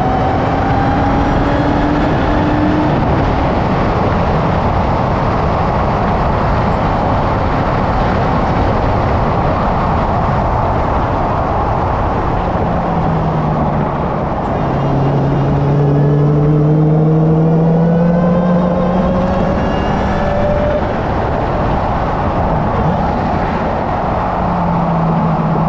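A car's engine pulling hard around a race track under heavy wind and road noise. The engine note climbs steadily at the start, drops back, then rises again about halfway through and once more near the end as the car accelerates out of the corners.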